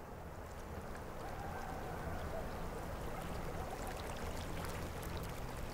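Soft, steady wash of flowing river water, with a faint low hum underneath.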